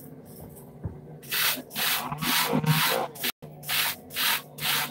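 Hard-bristle wooden hair brush swept repeatedly through short, shampoo-lathered wavy hair: a scratchy brushing in quick strokes, about three a second, starting about a second in.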